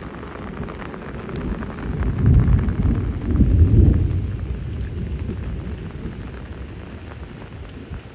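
Rainstorm: steady rain with heavy, low rumbling surges about two to four seconds in, easing off toward the end.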